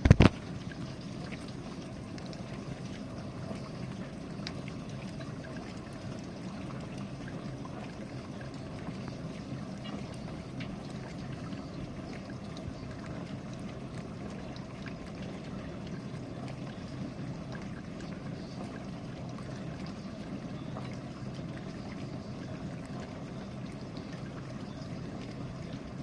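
GE dishwasher running its final rinse: a steady whoosh of water spraying and sloshing inside the tub. A single sharp knock comes right at the start.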